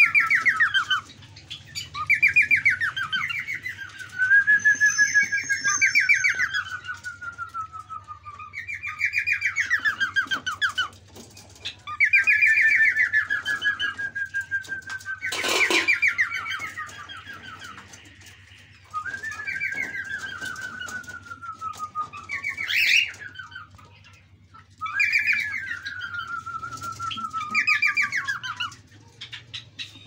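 Caged birds in a mixed aviary of cockatiels and budgerigars calling: one trilled phrase that slides down in pitch, repeated about ten times with short pauses between. A sharp knock sounds about halfway through.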